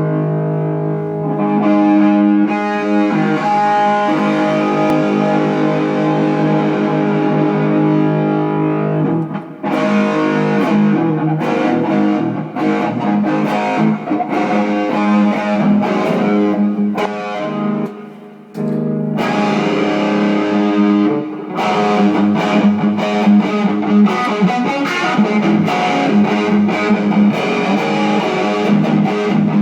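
Guitar being played: long ringing chords at first, then about nine seconds in, busier picked and strummed passages, with a brief pause a little past the middle.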